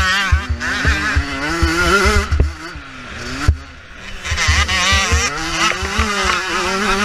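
2014 Kawasaki KX85 two-stroke motocross engine revving hard, its pitch rising and falling with the throttle, with wind buffeting a helmet-mounted microphone. About two and a half seconds in, the throttle is shut off and the engine drops quieter for about a second and a half, then revs back up.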